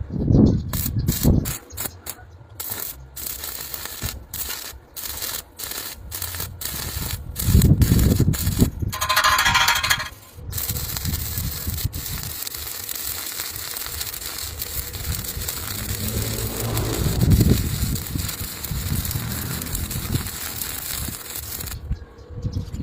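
Electric arc welding. The arc crackles in short starts and stops for about the first ten seconds, then burns as a steady crackling sizzle until shortly before the end.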